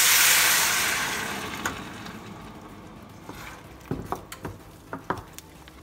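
Blended tomato salsa poured into a hot pan of chicharrón in its rendered fat, hitting with a loud sizzle that dies down over about two seconds as the sauce cools the pan. Near the end, a few knocks of a wooden spoon stirring against the pan.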